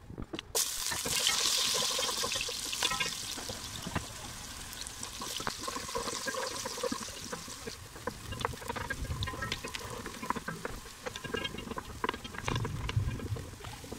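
Sliced onions sizzling in hot oil in a pot, with a wooden spoon stirring and knocking against the pot. The sizzle starts suddenly about half a second in and is loudest in the first couple of seconds.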